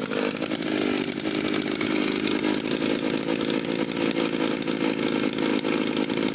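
Partner S55 vintage chainsaw's two-stroke engine running steadily.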